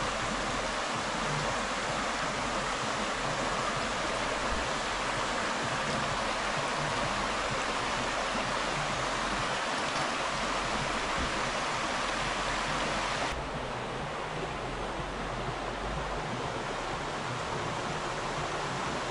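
Steady rushing of a flowing river. About 13 seconds in, the upper hiss thins out abruptly and the sound becomes duller.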